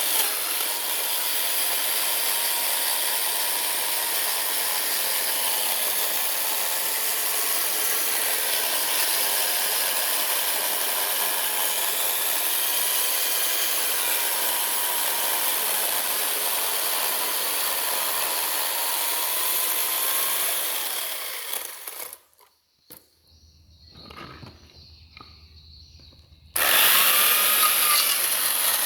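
Chainsaw cutting into wood, running steadily with slight rises and falls in engine pitch. About 22 seconds in it drops away for about four seconds, then comes back loud near the end.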